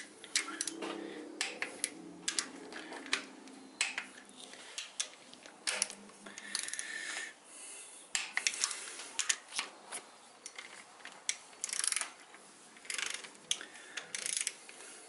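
Long-handled socket ratchet clicking in short, irregular runs as rocker arm bolts are run down, with the handle swung back and forth between strokes.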